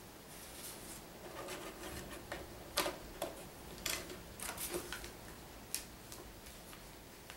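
Lego bricks being handled and pressed together, with the rustle of the paper instruction booklet: faint, irregular clicks and rustles, the sharpest clicks about three and four seconds in.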